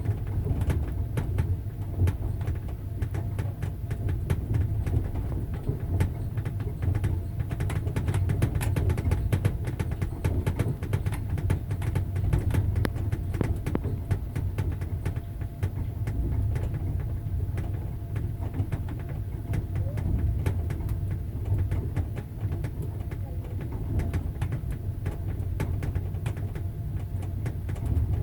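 Passenger train running along the track: a steady low rumble of the moving carriage with the wheels clacking over the rail joints again and again.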